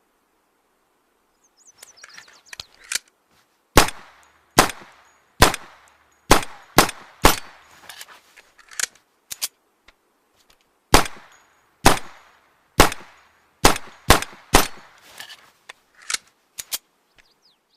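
Makeshift handgun gunshot sound effect: a few light clicks, then two runs of about six sharp shots each, roughly one a second, each run trailing off into a few fainter shots.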